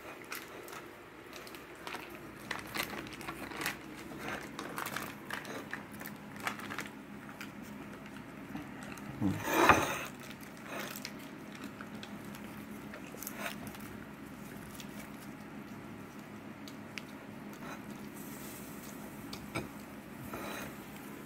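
Hands wrapping greens and crisp bánh xèo pancake in softened rice paper: light crackling, rustling and small clicks of food handling, with one louder brief noise about nine and a half seconds in.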